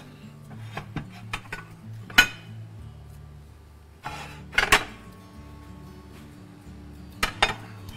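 Clinks and knocks of plates and kitchen utensils being picked up and set down on a countertop: a few separate sharp hits, the loudest about two seconds, four and a half seconds, and seven seconds in.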